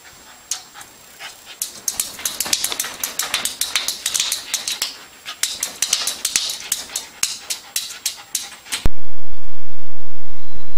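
A puppy yipping and whimpering at its reflection, with many quick sharp taps and clicks. About nine seconds in, a loud steady hiss cuts in and stays.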